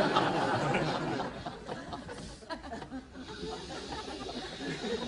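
Laughter, loudest at the start and easing off to a quieter, continuing level.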